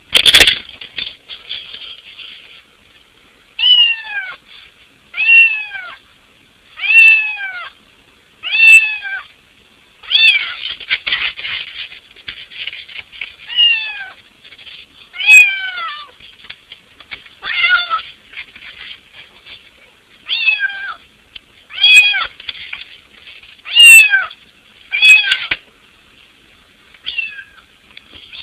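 Black-and-white cat meowing over and over to be let in the house, with a loud falling meow every second and a half to two seconds. A sharp knock comes just after the start, and a short rattle about ten seconds in.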